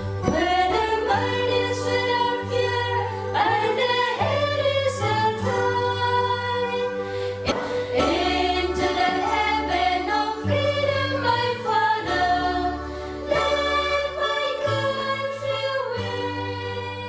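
A song with a choir singing over sustained instrumental chords, the melody sliding between held notes; it starts to fade near the end.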